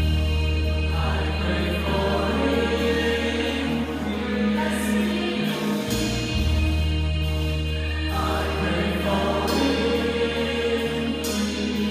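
Gospel choir singing with instrumental accompaniment. A low bass note is held under the voices and breaks off briefly about halfway.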